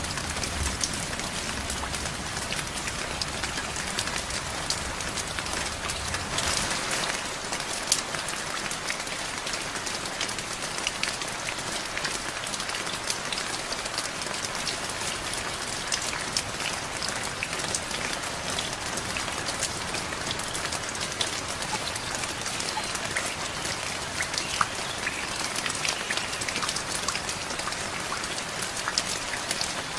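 Steady rain falling on a surface, a dense patter of individual drops. A low rumble sits underneath for about the first six seconds, then drops away.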